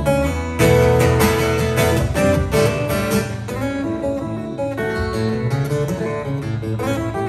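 Solo cutaway acoustic guitar played live in an instrumental passage, a picked melody over sustained bass notes, with a loud chord struck just over half a second in.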